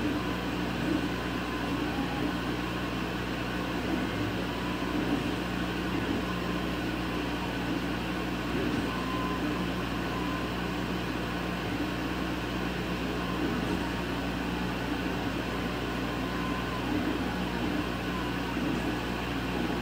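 Laser cutter running while it burns a pattern into cherry wood: a steady mechanical hum, with its air assist blowing at the cutting head.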